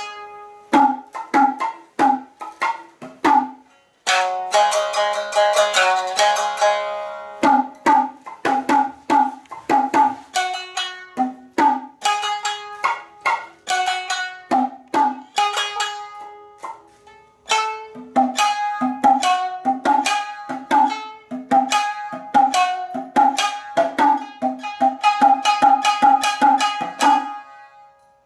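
Naga-uta instrumental passage: shamisen plucked notes over pitched tsuzumi hand-drum strikes. A dense flurry of notes comes about four seconds in. Steady runs of notes quicken toward the end, then the music stops shortly before the end.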